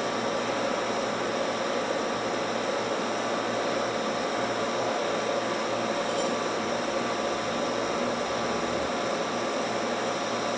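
Steady hiss with a faint steady hum, unchanging throughout, and a faint short tick about six seconds in.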